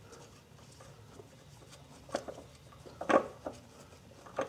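Bolts being threaded by hand into a crankshaft pulley: a few faint metallic clicks and scrapes, starting about two seconds in, with the loudest about three seconds in.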